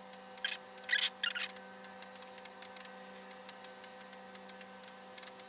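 A few brief light scrapes and clicks from a hand tool worked against the engine block, about half a second to a second and a half in, then only a faint steady electrical hum.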